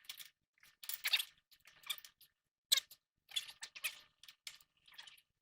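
Hand ratchet wrench clicking in short back-and-forth strokes, about two a second, as a steering-linkage nut is tightened.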